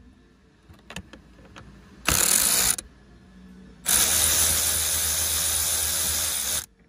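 Cordless power tool spinning a socket on an extension bar to undo a 10 mm bolt: a short burst about two seconds in, then a longer run of nearly three seconds that stops suddenly. A few light clicks come before it.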